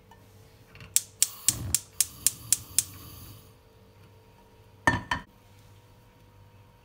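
Ice-cream packaging being handled: a quick run of about seven sharp clicks, then two knocks close together about five seconds in.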